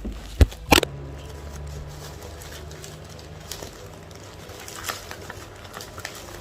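Two sharp knocks in quick succession, then faint crackling and rustling as a parcel's packaging is handled while being opened.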